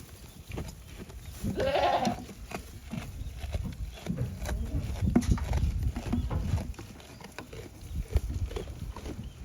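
A goat bleats once, briefly, about a second and a half in, over wind rumbling on the microphone.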